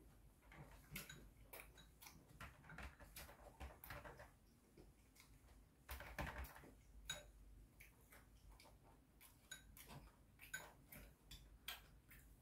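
Faint, scattered clicks of a metal spoon and chopsticks against ceramic bowls and a plate, with soft chewing.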